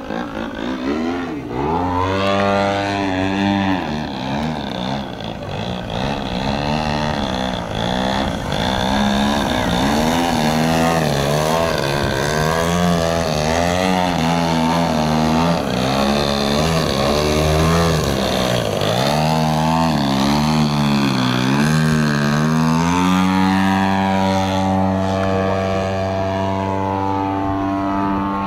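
Engine and propeller of a 35% Aeroworks Extra 260 radio-control aerobatic plane flying manoeuvres, its pitch rising and falling over and over as it flies. For the last few seconds it holds a steady pitch.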